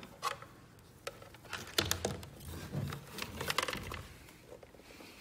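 Handling noise: irregular clicks and rustles as a power cord is picked up and worked over the plastic housing of a portable tire inflator.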